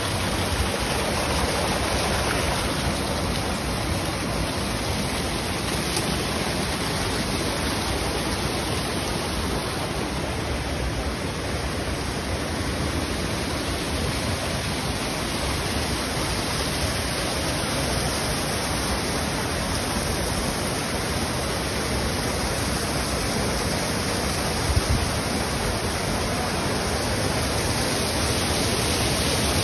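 Steady rush of water pouring into a concrete trout-farm raceway, splashing at the inlet with an even, unbroken noise.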